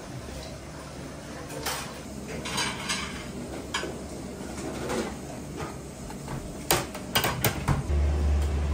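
Stainless-steel hotpot pans and utensils clinking and knocking lightly on a steel kitchen counter as ingredients are set into them, with a quick run of sharp clinks about seven seconds in. A low steady hum comes in near the end.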